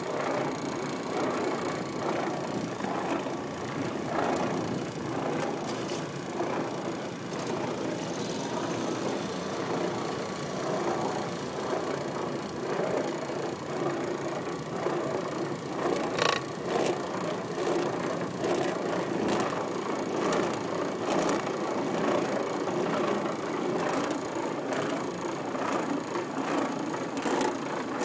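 Oreck Orbiter orbital floor machine running steadily, its pad spinning paper towels over a diamond-plate metal tray to buff off dried wax. Over the second half, scattered sharp clicks and rattles join the steady motor noise.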